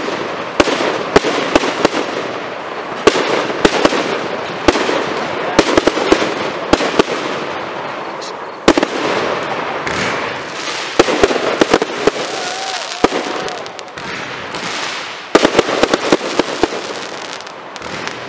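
Aerial fireworks display: shells bursting overhead in rapid, irregular bangs that come in clusters, with a haze of crackle and rumble between reports. The bangs thin out for a few seconds in the middle and again near the end.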